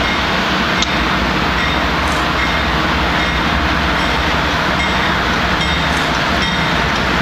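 Diesel freight train approaching, its locomotives running with a steady, unbroken noise.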